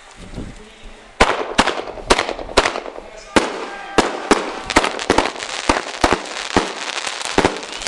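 Fireworks exploding: a rapid, irregular run of sharp bangs, about two to three a second, beginning about a second in.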